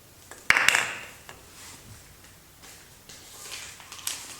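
Soap packaging being opened by hand: a sudden loud rip of the wrapper about half a second in, then quieter crinkling and rustling of the packaging.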